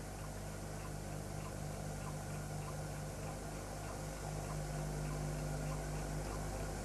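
Steady low electrical hum over hiss, with faint small ticks about twice a second. It is the background noise of an old film soundtrack, with no other event standing out.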